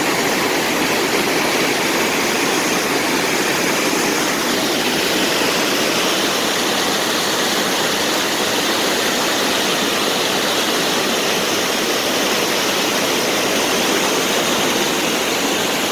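Steady, loud rush of a waterfall and fast-flowing river water.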